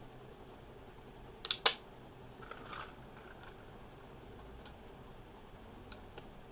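A few scattered keystrokes on a Royal Kludge RK71 mechanical keyboard with brown switches, with two loud clacks in quick succession about a second and a half in and fainter clicks after.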